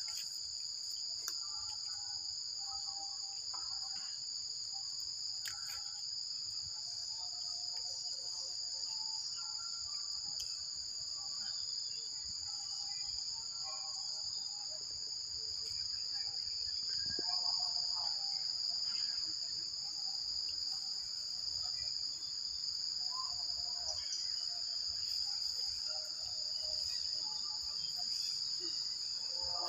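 Steady, unbroken high-pitched insect chorus, a continuous shrill in two close layers.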